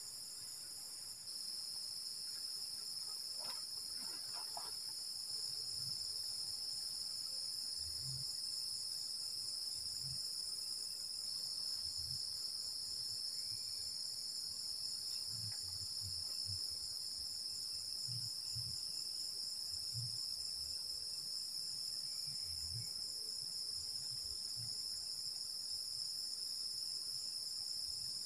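Night-time insect chorus, crickets among them: several overlapping steady high-pitched trills, one of them pulsing rapidly, that carry on without a break.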